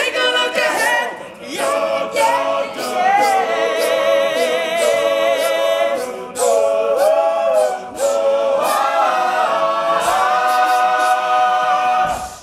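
All-male a cappella group singing in close harmony, a lead voice wavering with vibrato over the backing voices about halfway through. The song closes on a long held chord that dies away near the end.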